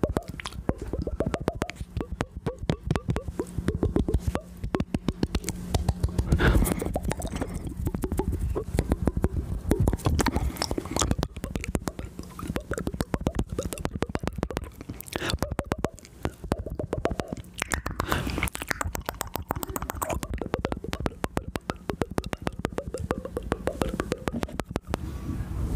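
ASMR mouth sounds made right against a microphone: a rapid, continuous run of wet clicks and pops, with low rumbling breath in between.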